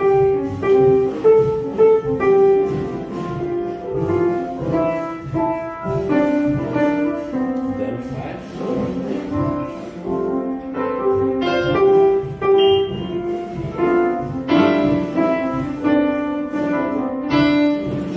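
Yamaha upright piano played slowly by a beginner, a simple melody picked out mostly one note at a time, following finger numbers.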